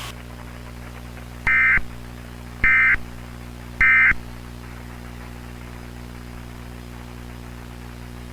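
Emergency Alert System end-of-message signal: three short warbling data-tone bursts about a second apart, each starting with a click, over a steady low hum.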